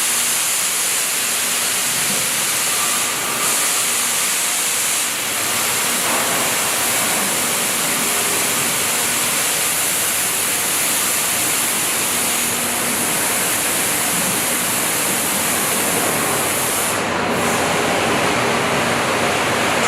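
A steady, loud hiss with a faint hum beneath it; the top of the hiss briefly drops out about seventeen seconds in.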